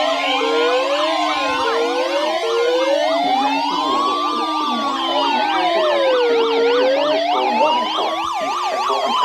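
Several emergency sirens sounding together: a slow wail rising and falling about every four seconds over a fast back-and-forth yelp, with short rising whoops about once a second in the first two seconds.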